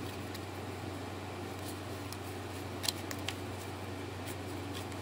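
Room tone with a steady low hum and a few small clicks, the sharpest about three seconds in.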